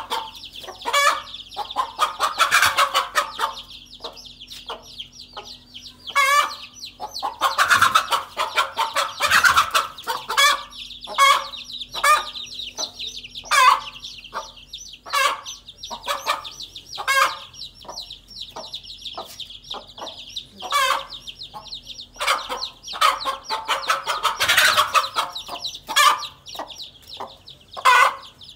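A mother hen clucking over and over, breaking into louder squawking bursts several times, over the continuous high peeping of her chicks: alarm calls at a cobra threatening the brood.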